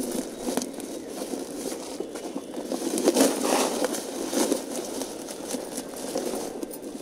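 Potting mix being worked by hand and filled into a plant pot: irregular crackling and rustling of soil, busiest about three seconds in.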